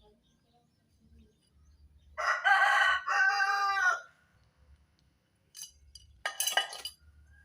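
A rooster crowing once, a long pitched call of about two seconds in two parts starting about two seconds in. A shorter, rougher call follows near the end.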